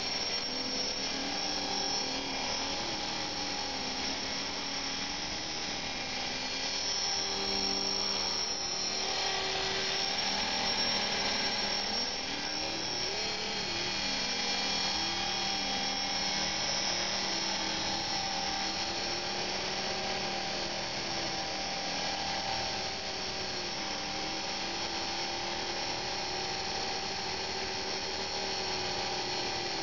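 Belt-driven, electric, collective-pitch RC helicopter flying: the steady high whine of its electric motor and drive mixed with the whir of the rotor blades, the pitch wavering up and down as it manoeuvres.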